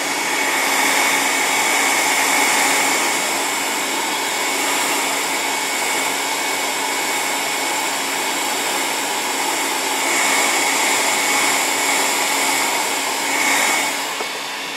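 Electric heat gun blowing steadily, shrinking heat-shrink tubing onto a bicycle seatpost: an even fan hiss with a steady high whine.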